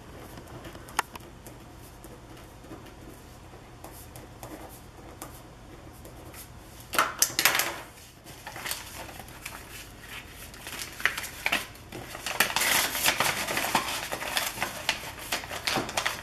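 Faint marker scratching on paper, then a short loud rustle about seven seconds in, and dense crackly paper rustling and crinkling as a letter and envelope are folded and pressed flat, louder over the last few seconds.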